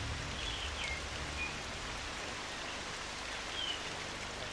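Steady rain falling, an even hiss, with a few short high chirps scattered through it.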